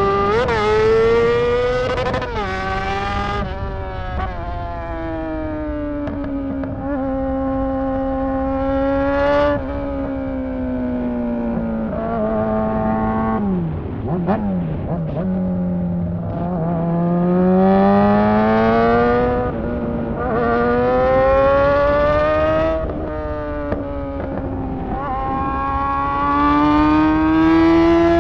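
Honda CBR600 inline-four engine running with no exhaust fitted, ridden hard: revs climb and drop sharply at each gear change, sink to low revs about halfway through as the bike slows, then climb again through several gears.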